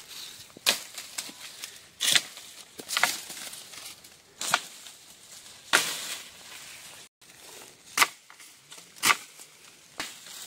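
Long pole striking the branches of a walnut tree to knock the nuts down. About seven sharp whacks come at irregular intervals roughly a second apart, each followed by a brief rustle of shaken leaves.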